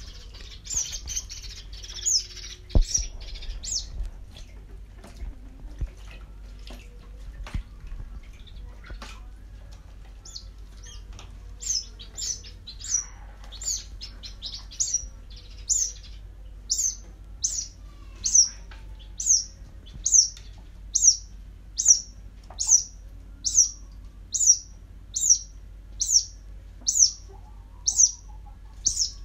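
White-breasted waterhen chick peeping: short, high calls that fall steeply in pitch, sparse at first, then repeated evenly about once a second through the second half. A few soft knocks come in the first half.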